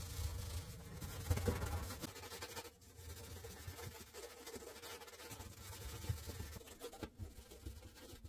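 A gloved hand scrubbing the grimy interior walls of an oven, giving irregular scratchy rubbing strokes. The strokes are firmest in the first couple of seconds, then lighter and broken by short pauses.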